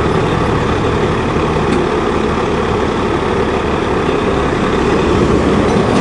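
Heavy-duty wrecker tow truck's diesel engine running steadily during a recovery, a loud, even engine noise.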